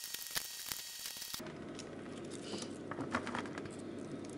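Faint quick clicks and light taps of raw onion slices being placed by hand on an oiled metal baking tray. About a second and a half in, the background changes abruptly to a duller, steadier room noise, with a few scattered taps after.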